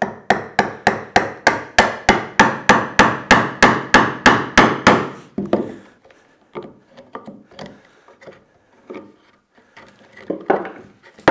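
Wooden mallet striking a chisel to chop into softwood, an even run of sharp blows, about four a second, for about five seconds: paring out the waste of a bridle joint back to the shoulder line. After that come a few scattered, lighter knocks.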